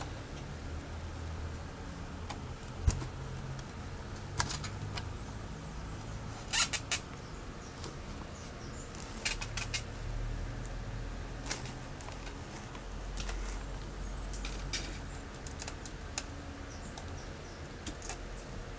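Handling noise from a car stereo unit and its wiring harness: scattered light plastic clicks and rustling of cables, with a few sharper clicks, the loudest a quick run of three about six and a half seconds in.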